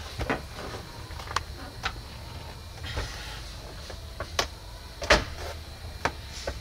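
Metal car-audio amplifier cases knocking and clunking as they are set down and shifted into place on a multi-layer acrylic amp rack: several separate knocks, the loudest about five seconds in, over a low steady hum.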